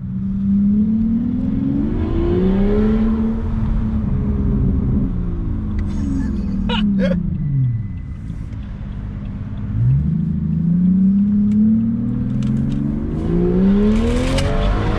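BMW 760Li V12 running through a straight-piped exhaust with the resonators and mufflers removed, heard from inside the cabin while driving. It revs up in the first few seconds, eases off through the middle, then climbs again near the end.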